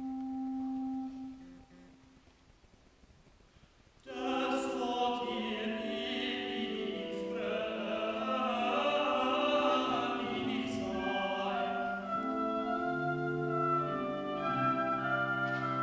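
Choir singing classical music with instrumental accompaniment. A single held note fades near the start, then after a short hush the full choir and instruments come in together about four seconds in, with a low bass note joining near the end.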